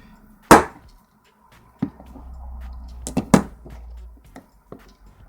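Sharp knocks and clicks of a gutted euro lock cylinder and its small pins and springs being handled on a hard work surface. The loudest knock comes about half a second in, another near two seconds, and two close together a little past three seconds, with low handling noise between them.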